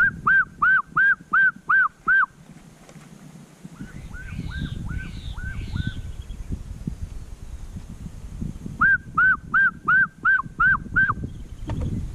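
A bird calling in loud, rapid runs of about seven ringing arched notes, roughly three a second: one run at the start and another near the end, with a softer run of similar calls in between.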